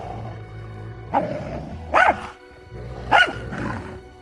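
A dog barking about three times, each bark short and sharp, over background music with long held tones.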